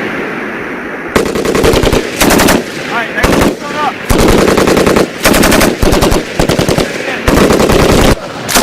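7.62 mm M240B machine gun fire: after the echo of a burst dies away, short bursts of a few rounds each follow one another about every half second to second, the shots echoing.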